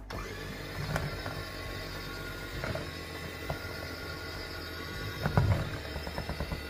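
Electric hand mixer starting up and running steadily, its beaters whisking batter in a plastic bowl, with scattered clicks and knocks of the beaters against the bowl, loudest about five seconds in.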